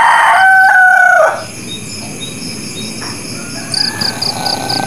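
A rooster crowing: one loud crow that ends about a second in, followed by softer bird chirps.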